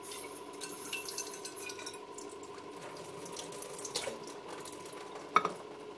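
Water running from a kitchen tap into a glass plate, then a single sharp knock near the end.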